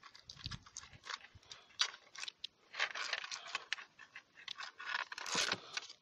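A strap being pulled around a plastic fibre-optic splice tray by hand: irregular rustling, scraping and light clicks, busiest about five seconds in.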